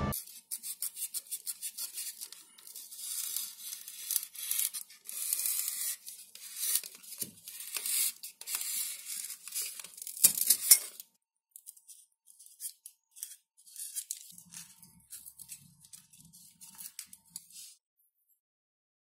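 XPS foam being handled and cut with a craft knife along a template: many short scratchy strokes, loudest about ten seconds in, then fainter for a few seconds after a short gap before stopping.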